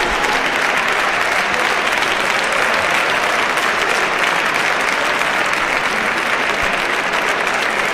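Applause from many people, a dense, steady clapping that holds at the same level without letting up.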